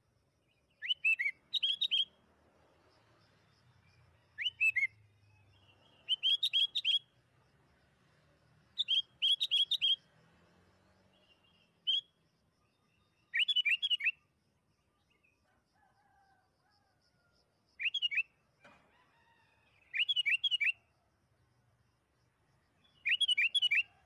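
Sooty-headed bulbul (kutilang) singing: about ten short, bright phrases of three or four quick whistled notes, each sliding up and down, repeated with pauses of one to a few seconds between them.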